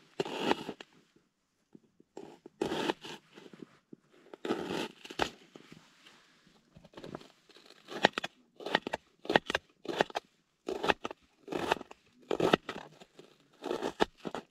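Kitchen knife cutting a red onion against a plastic bowl lid: a run of crisp crunching cuts, a few spaced out at first and then coming quickly, about two a second.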